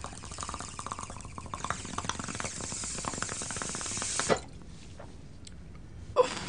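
Water in a glass bong bubbling as smoke is drawn through it in one long hit. The bubbling grows louder for about four seconds, then stops abruptly. A short sharp sound follows near the end.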